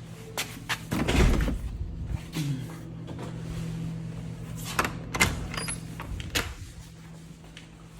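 Clicks and knocks of things being handled, with a louder rustling clatter about a second in, over a steady low hum.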